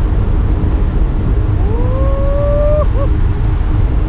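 Wind buffeting the camera's microphone in flight on a tandem paraglider: a loud, steady rush. About two seconds in, a single drawn-out tone rises and then holds for about a second.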